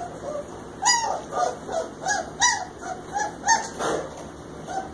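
Three-week-old German Shepherd puppies whimpering: a string of short, arching whines, two or three a second, starting about a second in.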